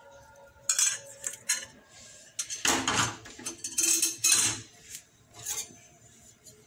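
A steel ladle clinking and clattering against kitchenware in a series of sharp knocks and short scrapes, loudest around the middle.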